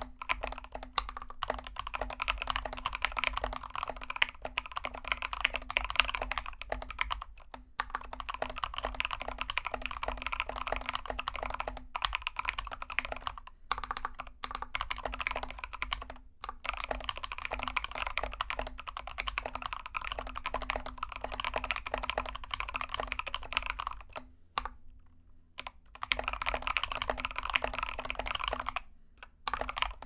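Fast continuous typing on a GK61X 61-key mechanical keyboard with Tangerine switches lubed with Krytox 205g0 and a foam mod: a dense run of keystrokes. It breaks off for about a second and a half late on, and briefly again just before the end.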